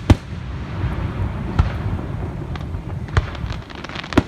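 Aerial fireworks bursting: a string of sharp booms, one just after the start, fainter pops in the middle and loud ones near the end, with a low rumble between them.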